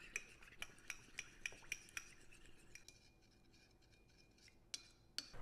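Metal teaspoon clinking against a small ceramic bowl while stirring a cornflour-and-water slurry: light, quick clinks about four a second for the first two seconds, quieter stirring after, then a couple of clinks near the end.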